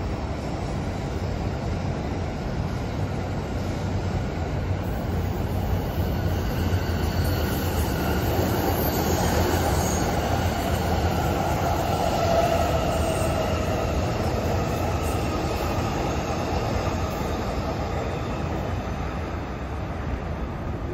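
JR East E233-series Chūō Line electric commuter train passing: a steady rumble of wheels on rail with a faint whine that slides in pitch. It grows louder to a peak about twelve seconds in, then fades.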